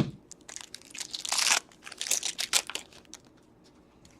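Hockey card pack wrapper crinkling and tearing as the pack is opened, with the cards rustling and clicking as they are handled; the sounds come in short irregular bursts and die away after about three seconds.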